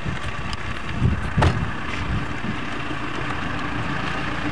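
Wind rumbling on a camcorder microphone, with two short knocks about a second and a half in and a faint steady hum in the second half.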